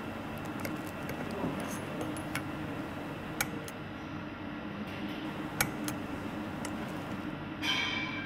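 Sparse small metallic clicks and taps of a hand tool working the springs and screws of a scooter's CNC clutch bell, over a steady low hum. A brief pitched sound comes in near the end.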